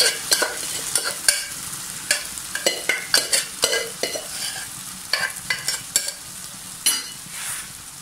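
Boiled pork with its liquid tipped from a pot into a hot pan of fried masala, sizzling, with many irregular clicks and knocks as the pot is scraped and tapped against the pan. The sizzle fades toward the end.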